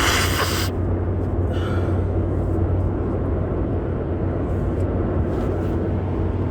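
Steady road and engine noise heard inside a moving car's cabin, with a low hum underneath. A short hiss at the very start lasts under a second, and a fainter one follows about a second later.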